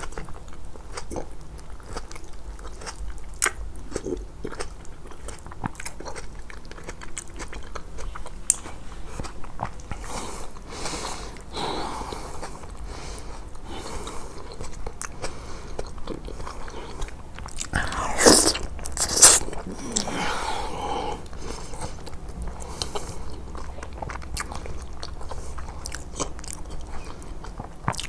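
Close-miked eating: biting and chewing with many scattered sharp clicks, and two louder bursts about two-thirds of the way through.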